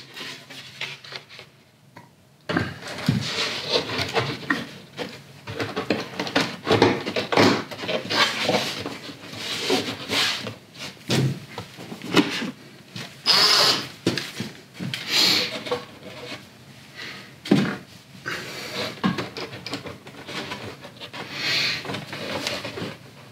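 A wooden layout baseboard being lowered and shuffled into place on its framework: irregular scraping, rubbing and knocking of wood on wood, starting a couple of seconds in.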